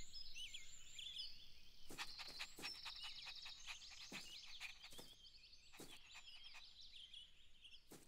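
Faint birdsong ambience: many quick, high chirps and twitters, with a run of light taps from about two seconds in to about six seconds.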